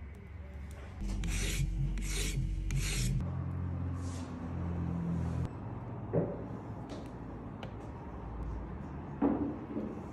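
Three rasping scrapes about two-thirds of a second apart, then a fainter scrape and two light knocks, one in the middle and one near the end.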